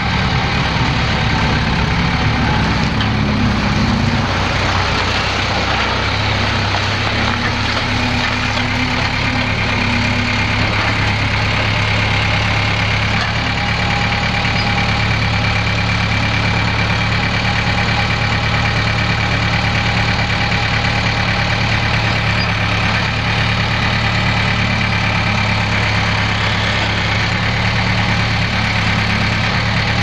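Case 1840 skid steer's four-cylinder diesel engine idling steadily.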